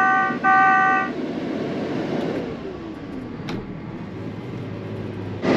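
Two loud chord-like electronic beeps, about half a second each, in the first second from the Case IH 8250 combine's cab as its Pro 700 display comes up. The combine's engine then runs steadily, with a falling whine near the middle and a sharp click a little later.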